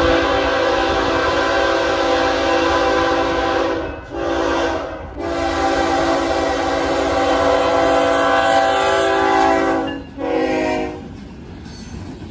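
BNSF freight locomotive's air horn sounding for a road crossing, several notes at once, in four blasts: long, short, long, short. About eleven seconds in the horn stops and the locomotive and freight cars rumble past close by.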